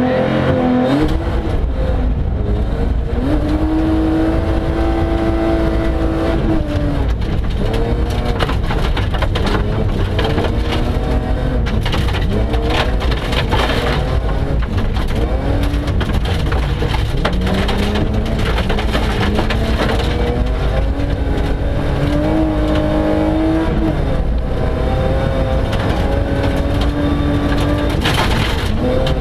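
BMW 325 Group H rally car's straight-six engine revving hard, its pitch climbing, holding and dropping again and again through gear changes at full speed on gravel, heard from inside the cabin. Gravel crunches and stones clatter against the underside over a constant low road rumble.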